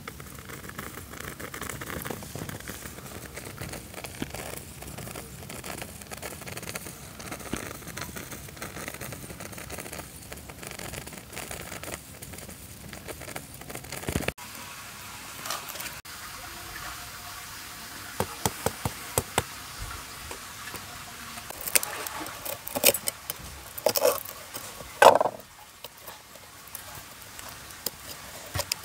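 Light crackling over a steady hiss, then a run of sharp clicks and a few loud short knocks and scrapes near the end: a knife working at the baked dough seal of a clay cooking pot on a wooden board.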